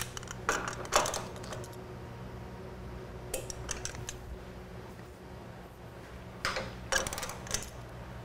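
Torque wrench ratcheting and clicking on motorcycle shock bolts as they are torqued to 35 ft-lb. Single clicks come early, then two short runs of quick ticks, one a little before the middle and one near the end.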